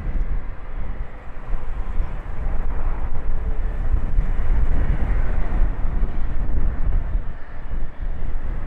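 Steady low rumble of a jet airliner's engines at the airfield, with gusty wind buffeting the microphone.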